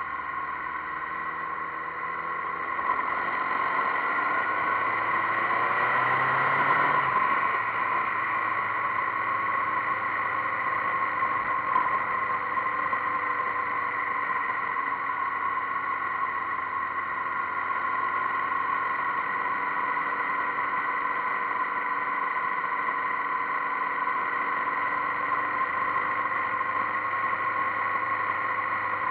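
Motorcycle engine and rushing wind, picked up by a camera mounted on the moving bike. The engine pulls up through the revs a few seconds in, then runs at a steady cruise.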